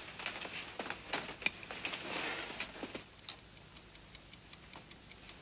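Quiet, irregular light clicks and metallic taps with a soft rustle: a pocket watch being handled and lifted off its small metal stand.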